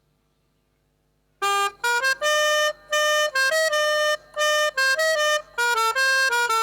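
Pianika (melodica) playing the telolet basuri bus-horn tune: a quick run of held notes broken by short gaps. The notes start about a second and a half in, after a near-silent opening.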